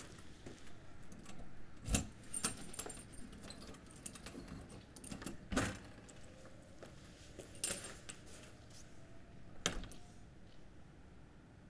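Keys jangling, with a handful of sharp metallic clicks and knocks spread over several seconds. The loudest come about two, five and a half and ten seconds in.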